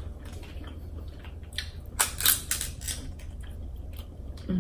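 King crab leg shell being cracked and pulled apart by hand, with a short cluster of sharp crunchy cracks about two seconds in and lighter clicks around it.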